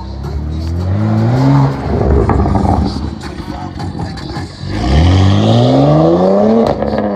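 BMW M performance car with an aftermarket exhaust accelerating hard, its engine pitch rising in a short pull that ends with a drop just under two seconds in, then a longer pull that climbs and falls away near the end.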